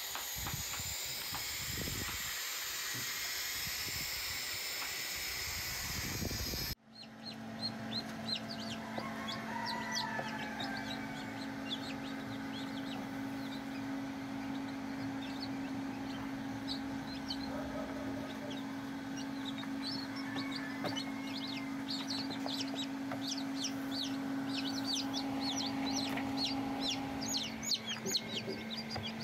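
Barn owl owlets hissing. After a cut, newly hatched chicks peep constantly over the steady hum of an incubator.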